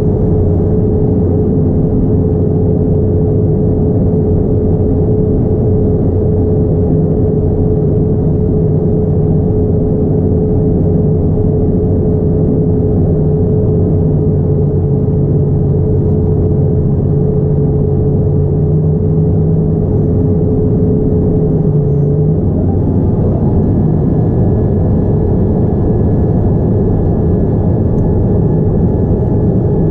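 Steady loud cabin rumble of a Boeing 787-9 airliner, engine and airflow noise heard from a window seat. A steady hum in it stops about 22 seconds in, and a faint higher whine comes in soon after.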